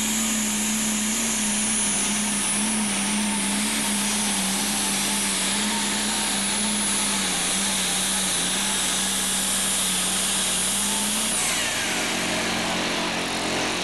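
Super stock pulling tractor's turbocharged diesel engine running hard and loud, its pitch wavering, with a high whine over it. About eleven seconds in the whine cuts off and falls away, and the engine note drops.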